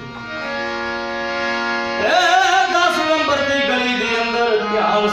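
Harmonium holding a steady chord, then about two seconds in a man's voice comes in singing a long, wavering devotional line over it.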